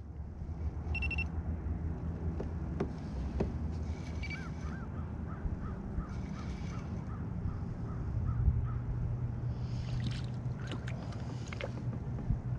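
A fishing reel being cranked to bring in a fish, with a faint squeak on each turn of the handle repeating about two and a half times a second for several seconds, over a steady low rumble. A few clicks and knocks come near the end.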